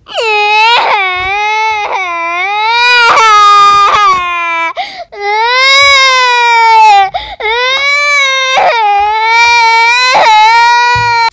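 A baby crying: a string of long, loud wails with short catches of breath between them.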